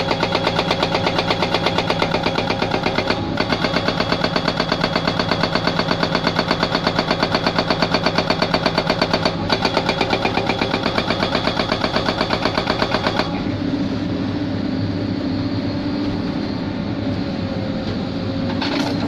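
Hydraulic rock breaker on a Hyundai excavator hammering in a rapid, even rhythm, pausing twice briefly, then stopping about 13 seconds in; the excavator's engine keeps running steadily afterwards.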